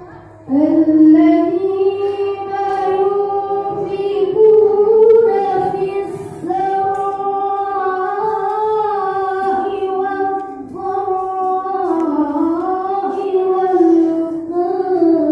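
A boy reciting the Quran in the melodic tilawah style into a hand-held microphone: long held notes that waver and turn in pitch, with two short pauses for breath.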